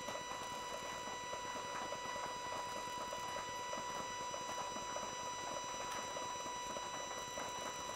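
PrimaLuceLab Esatto robotic focuser's stepper motor running steadily as it drives the focuser outward from position 0 toward fully out: an even whine with overtones over a faint fine ticking.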